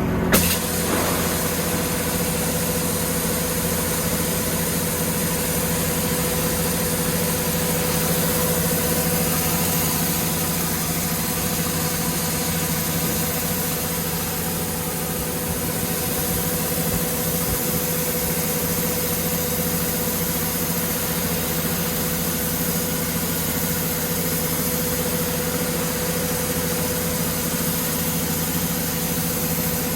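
Yanmar YH700M combine harvester's diesel engine and threshing machinery running at a steady speed, a constant hum with a hissing whir over it. A brief knock sounds about half a second in.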